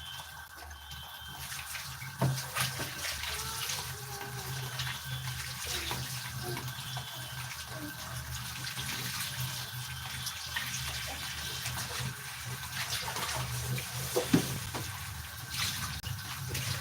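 Small sardines (omena) frying in a pan of oil: a steady sizzle full of small crackles and pops.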